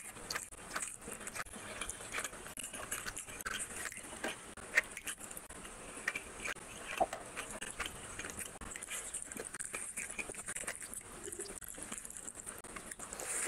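Fingers mixing cooked rice with fish curry gravy on a plate: a steady run of sticky clicks and squelches.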